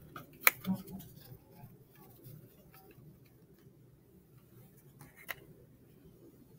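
Quiet room with a few light taps and clicks from handling stacked paper number cards on a tabletop. The sharpest tap comes about half a second in, and a single click comes just after five seconds.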